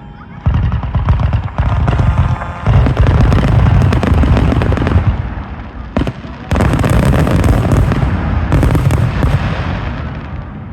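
Dense barrage of fireworks: overlapping booms and rapid crackling, with new volleys starting suddenly every second or two and a single sharp crack about six seconds in.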